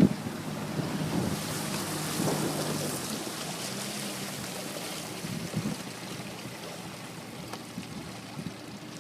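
Boat motor running under way, with wind and water hiss over it; the engine tone fades after about three seconds, leaving mostly the rush of wind and water.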